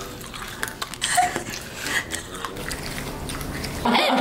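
Scattered short clicks and smacking mouth sounds from eating, then laughter breaks out near the end.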